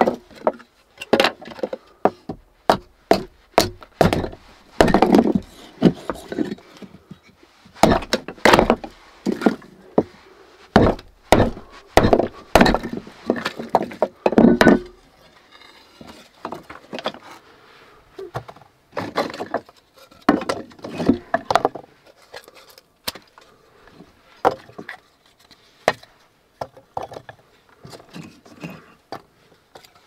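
Hatchet splitting dry kindling: a quick run of sharp chops and cracking wood. About halfway through, the chopping stops and gives way to softer knocks and clatter as the sticks are laid into the stove's firebox.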